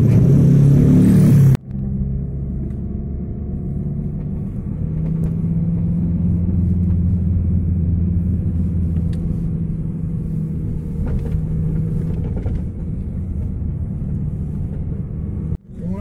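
A motor vehicle's engine and road noise heard from inside the cabin, a steady low hum whose pitch drifts slightly. In the first second and a half, before a cut, there is loud wind noise on the microphone over a motorcycle's engine.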